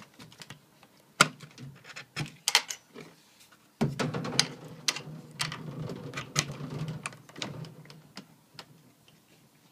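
Handling noise of a wooden-framed wire-mesh rabbit hutch: sharp clicks and knocks as its small door is worked, the loudest about a second in, then a rattling scrape of wood and wire mesh for a few seconds, and a few clacks of the door's metal slide-bolt latch near the end.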